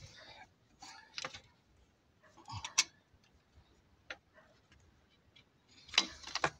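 Hands refitting the oil condenser and its hoses on a Land Rover 200Tdi rocker cover: a run of plastic and rubber clicks, taps and short rustles, the sharpest about three seconds in and again near the end.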